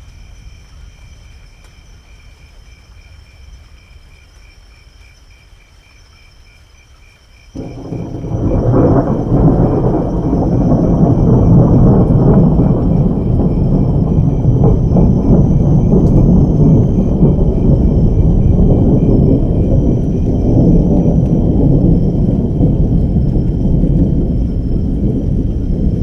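Thunder: after a few seconds of faint low rumble, a loud thunderclap breaks suddenly about seven and a half seconds in and becomes a long, deep, rolling rumble.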